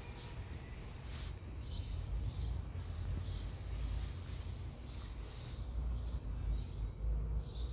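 A small bird chirping repeatedly, quick falling chirps about one or two a second, over a steady low rumble.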